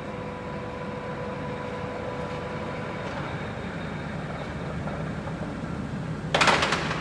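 Dean Smith & Grace Type 21 heavy-duty lathe running with its carriage traversing under power feed: a steady drone of motor and gearing, with a whine that fades out about three seconds in. Near the end there is a short, loud clatter as the feed gearbox lever is worked to change the feed rate.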